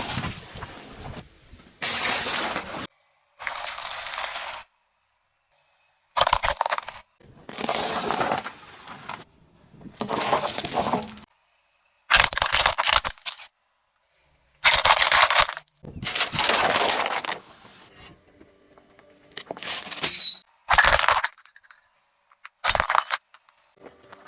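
Objects being crushed under a car's tyres: a series of about a dozen short crunching and cracking bursts, each cut off abruptly with brief silences between.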